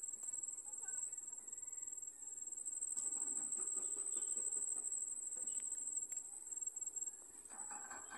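Insects trilling steadily at a high pitch, with a soft rustling of sweet potato leaves being picked by hand in the middle.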